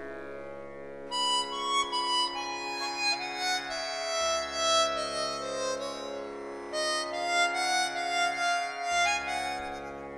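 Instrumental background music: a melody over held chords.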